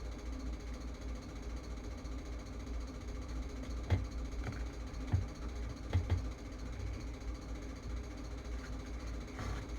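Steady low hum with a few faint clicks and taps, about four to six seconds in, from small tools being handled while soldering a circuit board.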